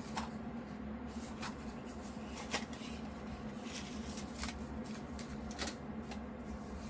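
Light, scattered clicks and handling noises from hands working with a plastic filament spool, over a steady low hum.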